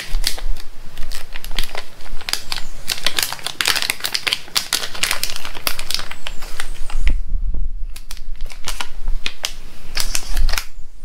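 Hand tools and small hardware being handled: a busy, irregular clatter of sharp clicks and taps, with a couple of dull knocks about two-thirds of the way in and near the end.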